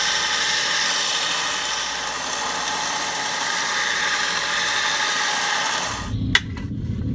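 A power tool grinding a metal part to round off its edge, running steadily, then stopping about six seconds in, followed by a low rumble.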